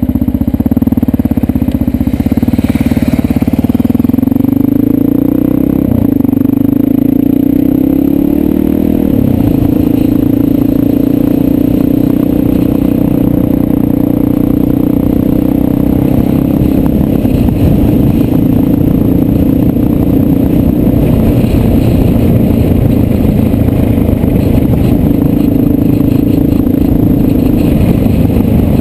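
Motorcycle engine running steadily at road speed, heard from the bike carrying the camera, over a constant rush of wind and gravel road noise. The engine note steps in pitch twice in the first ten seconds, then holds steady.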